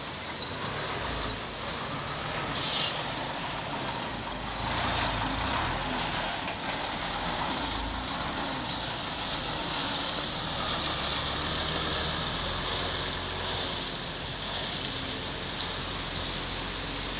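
Truck on the move: steady engine rumble and road noise, with a brief hiss about three seconds in.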